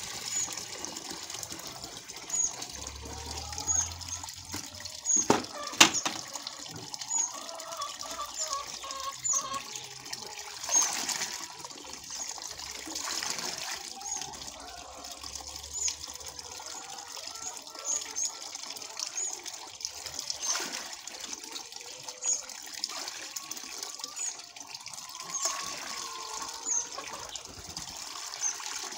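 Water splashing into a plastic bucket as it is poured in and then scooped and poured back with a plastic jug, mixing egg-stimulant powder into the water. A single sharp click about six seconds in is the loudest sound.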